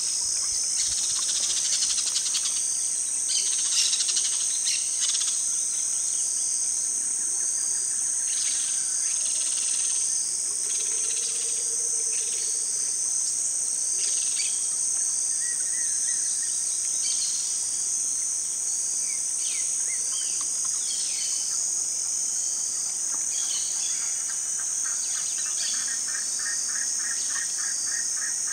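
Steady, high-pitched insect chorus, with scattered short rustles and scratches in dry leaf litter from a nine-banded armadillo rooting for food, and occasional brief chirps. Near the end a fast series of pips joins in.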